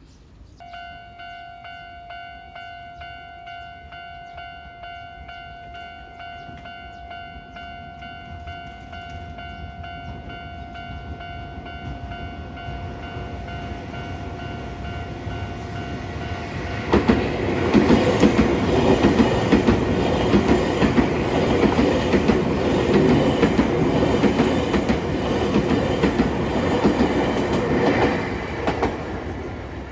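A Japanese level-crossing warning bell starts ringing about half a second in, a steady, rapidly repeated electronic ding. Train noise swells, and at about 17 seconds a Nankai train passes over the crossing loudly, its wheels clacking over the rail joints. The noise dies away near the end.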